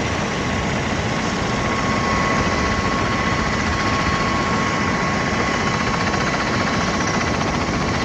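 V-22 Osprey tiltrotor running on the ground, rotors turning in helicopter mode: a steady loud rush from its twin turboshaft engines and rotors, with a constant high whine.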